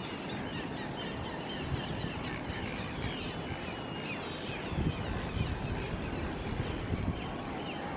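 Outdoor ambience of many small birds chirping and twittering, with one longer thin whistle about three seconds in, over a steady low rumble.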